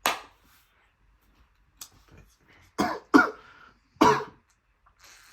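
A person coughing: one cough at the start, then a run of three harsh coughs about three to four seconds in.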